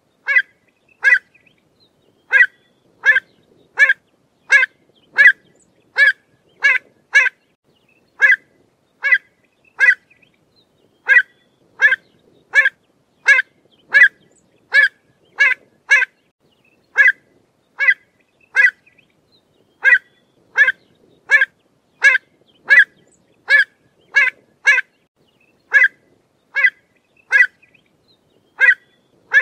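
Pied avocet giving its short, sharp 'kluit' call over and over, one to two calls a second with brief pauses now and then.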